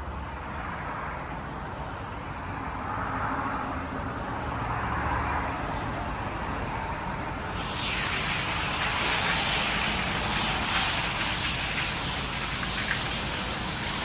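Water spray from a D&S IQ 2.0 touchless car wash striking a car. About halfway through it suddenly turns into a louder, higher hiss.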